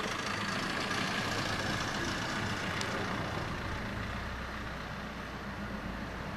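A large vehicle's engine idling steadily, a low hum under a broad hiss.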